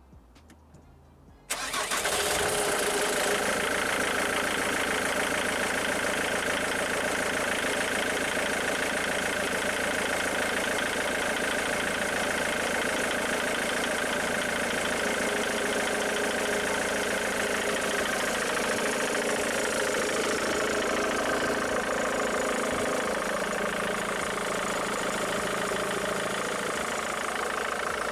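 Ford Mondeo Mk3 TDCi diesel engine starting suddenly about a second and a half in, then idling steadily. This is its first start on a freshly fitted diesel fuel filter, and it idles well enough to be called a lot better already.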